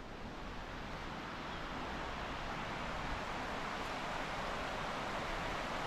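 Fast-flowing floodwater of the Buffalo River rushing steadily, growing slightly louder.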